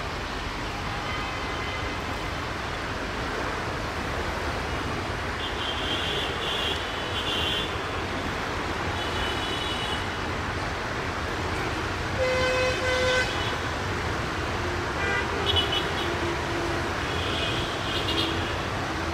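EMD GT18L-2 diesel-electric locomotive approaching with a steady low diesel rumble. Its horn sounds for about a second just past the middle, followed by shorter, lower horn notes.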